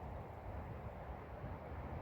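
Wind rumbling on the microphone: a steady low rumble with a hiss over it.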